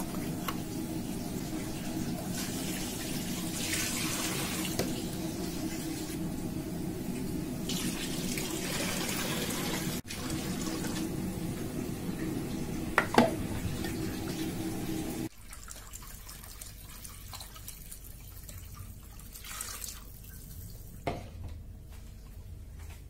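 Hot water pouring into a large aluminium pot around sealed glass jars, filling the pot to sterilize the jars: a steady rush of water for about fifteen seconds. It then drops to a quieter sound, with a sharp clink shortly before and another near the end.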